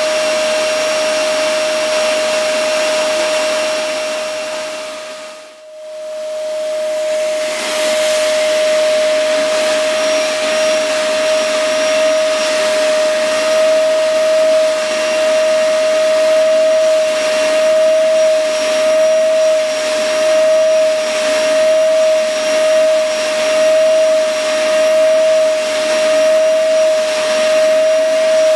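Vacuum cleaner running with a steady high whine over a rushing of air, its hose nozzle drawn over a cat's fur. The sound fades out and back in about five seconds in, then swells and eases about once a second.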